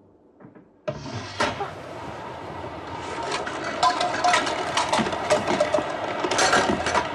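A sudden loud rushing, rattling noise breaks in about a second in, thick with clicks and clatters, and slowly builds.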